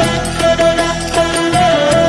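Turkish arabesque music: a held melody line that bends slowly in pitch, over a steady rhythmic accompaniment.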